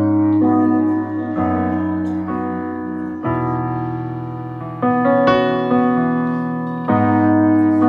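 Instrumental karaoke backing track with no lead vocal: a keyboard playing sustained piano chords, a new chord struck every one to two seconds.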